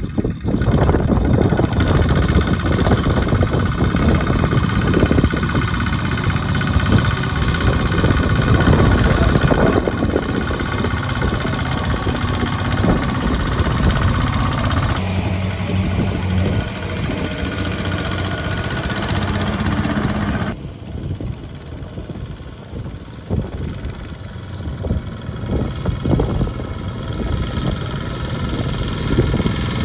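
Two-wheel walking tractors' single-cylinder diesel engines chugging under load as they pull trailers of rice sacks through mud. The sound changes abruptly twice, about halfway and about two-thirds of the way through, and is quieter after the second change.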